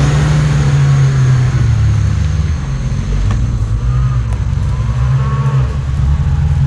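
Off-road 4x4's engine running under load, a steady deep drone whose pitch wavers slightly.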